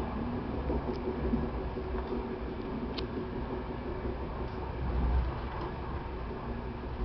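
Passenger train running on the line, heard from inside a sleeping-car corridor: a steady low rumble from the running gear and track, with a few light clicks from the carriage.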